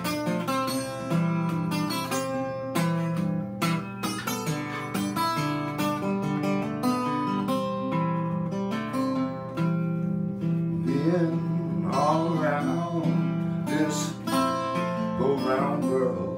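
Acoustic guitar played country-blues style, plucked melody notes over a steady bass line. A man's singing voice joins the guitar about eleven seconds in.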